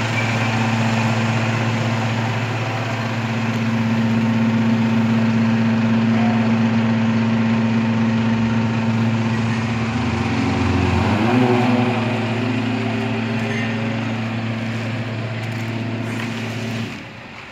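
Heavy diesel dump truck engine running steadily. Its pitch shifts and rises briefly about eleven seconds in, and the sound cuts off suddenly about a second before the end.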